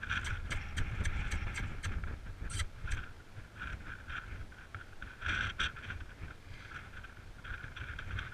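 Wind buffeting the microphone as a low rumble, with irregular short clicks and clinks over it.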